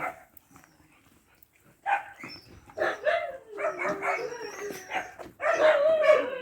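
A dog vocalising in a string of drawn-out barks and whines, starting about two seconds in and loudest near the end.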